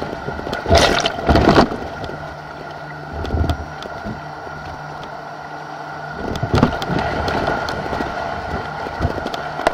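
White-water rapids rushing, with waves splashing over a camera held at water level. Two loud splashes come about a second in, and smaller ones follow later.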